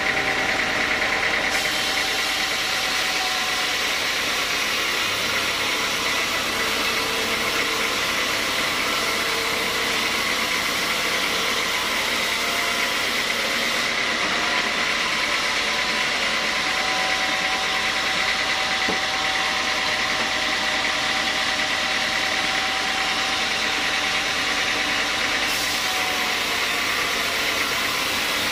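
Bandsaw mill running and its band blade sawing lengthwise through a large log, a steady mechanical noise with a high whine on top.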